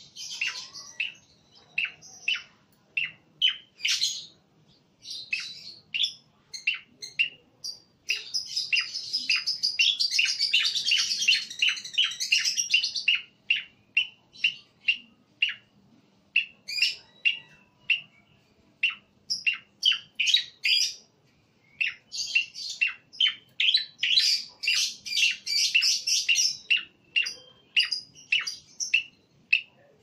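Caged male cucak koreng singing: a string of short, sharp chirps broken by two long bouts of rapid, dense chattering song, one about a third of the way in and one about three-quarters of the way through.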